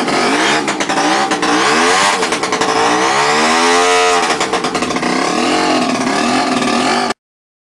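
Jawa Pionýr 21's 50 cc two-stroke single-cylinder engine running and being revved on the throttle. Its pitch climbs and falls a few times, the highest rev about four seconds in, and the sound cuts off suddenly near the end.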